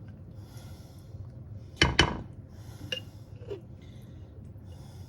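A glass canning jar of home-canned pie filling being handled: two sharp clacks in quick succession about two seconds in, followed by a few lighter clinks.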